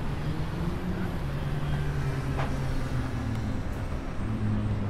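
City traffic noise: a steady low drone of vehicle engines whose pitch shifts slightly, with a faint tick about halfway through.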